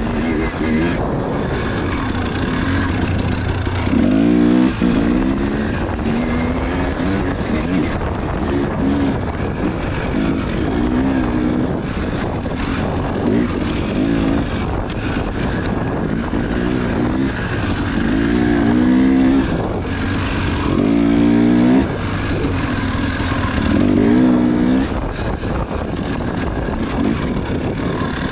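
Husqvarna dirt bike engine revving hard as it is ridden off-road, its pitch climbing and falling back again every couple of seconds as the throttle is worked and gears change, over a steady rushing noise.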